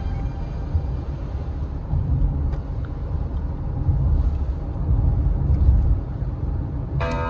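Steady low rumble of road and engine noise inside a moving car's cabin. Music comes in right at the end.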